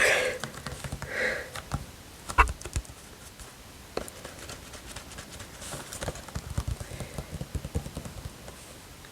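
Irregular soft taps, clicks and knocks of objects being handled close to the microphone, with a denser run of small taps near the end and a couple of soft breaths at the start.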